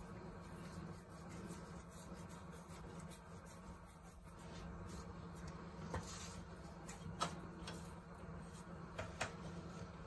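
Quiet handling of ragi and rice flour dough: a ball being rubbed and shaped between the palms, over a low steady hum. A few light clicks and taps come in the second half as the dough is dusted in a steel tin of dry flour.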